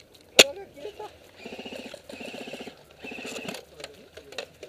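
A gas airsoft pistol fires a single sharp shot about half a second in. It is followed by three short full-auto bursts, each about half a second of rapid even ticking over a steady whine, typical of an electric airsoft rifle firing some way off.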